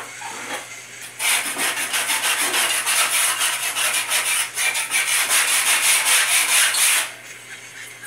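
Hand sanding the rusty painted sheet-metal cover of an old air conditioner condenser: fast back-and-forth scrubbing strokes, starting about a second in and stopping abruptly about a second before the end.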